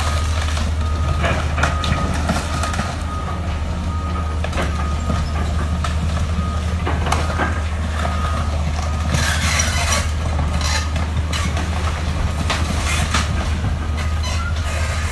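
Heavy demolition machinery running steadily while a house is torn down, with knocks and crashes of debris, the heaviest about nine seconds in. A backup beeper sounds on and off during the first few seconds.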